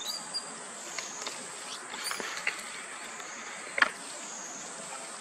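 A high-pitched insect drone that swells and fades every couple of seconds, with scattered crackles and rustles of dry leaves underfoot as a macaque walks over leaf litter; the sharpest crackle comes a little before the end.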